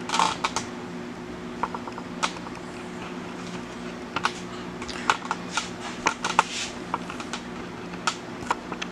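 Metal spoon stirring thick cake batter in a plastic mixing bowl, with irregular clicks and taps of the spoon against the bowl's side. A steady low hum runs underneath.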